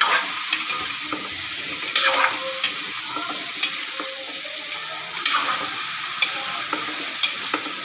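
Squash and string beans sizzling in hot oil in a metal wok while a metal spatula stirs them, with scattered sharp clinks and scrapes of the spatula against the pan.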